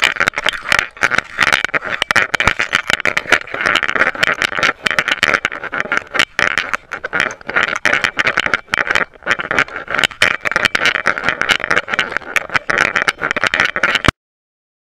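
A GoPro camera hanging from a running dog's collar, its housing rattling and knocking continuously with the dog's movement over a loud rushing noise on the microphone. The sound stops abruptly near the end.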